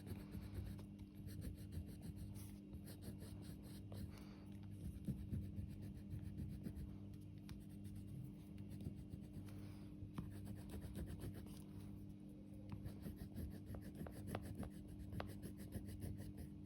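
Orange colour being stroked onto drawing paper, a run of many short scratchy strokes over a steady low hum.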